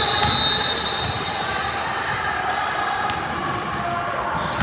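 Basketball game sounds in a large gym: the ball bouncing on the hardwood court with a few sharp knocks, a high-pitched squeal about a second long at the start, and crowd voices.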